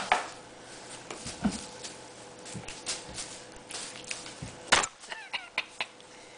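RagaMuffin cats playing on a carpeted cat tree: scattered scuffs, taps and claw scratches, with two sharp knocks, one right at the start and one just under five seconds in.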